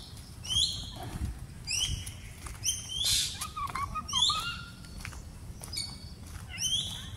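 A bird calling over and over, short high chirps that drop in pitch, repeating at uneven gaps of about a second.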